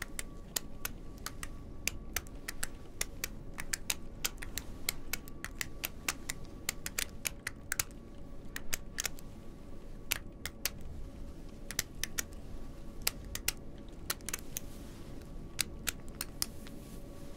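Two metal retractable click pens clicked in quick, irregular runs of sharp clicks, several a second, with short pauses, growing sparser near the end.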